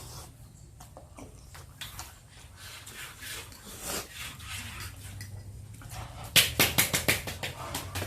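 People eating extremely spicy noodles, sniffing and breathing hard through the burn, with scattered short mouth and eating noises. About six seconds in comes a quick run of sharp, loud smacking sounds, about eight in a second.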